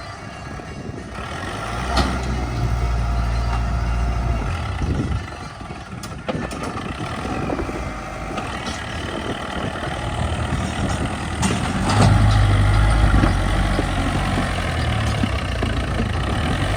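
Diesel engine of a JCB 3DX backhoe loader working, revving up about two seconds in, easing off, then revving up again near twelve seconds. A few sharp knocks come through over the engine.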